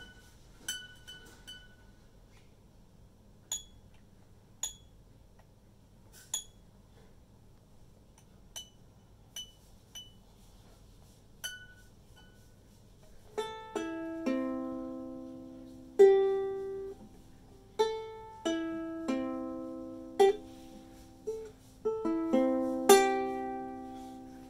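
A child playing a ukulele: for about half the time only scattered faint, high plinks and taps at the strings, then about a dozen irregular strums across the strings, each chord ringing on and fading before the next.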